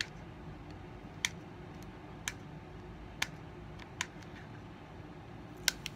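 Fingernails picking at the peel-back label of a small plastic hand sanitizer bottle: a handful of faint, sharp clicks spaced about a second apart.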